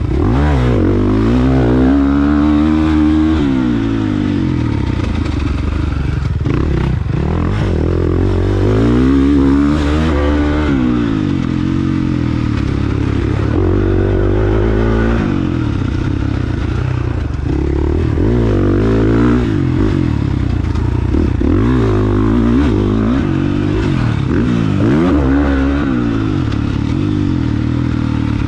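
A 450cc motocross bike's single-cylinder four-stroke engine being ridden hard on a dirt track, revving up under throttle and falling back again and again through the corners and shifts. The bike clatters over the rough ground, with a few sharp knocks from bumps.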